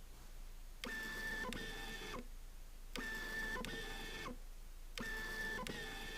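Camera lens autofocus motor driving focus back and forth three times. Each run is a whirring whine of just over a second with a click partway through and at its end, where the focus group reverses or stops.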